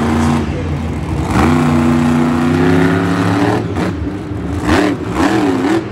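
A person making monster-truck engine noises with their voice, acting out the stalled truck starting up again: a drawn-out "vroom" that climbs slowly in pitch, then a wavering revving near the end.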